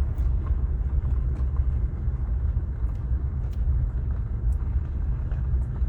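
Steady low rumble of a vehicle driving along a road, heard from inside the cab: engine and tyre noise.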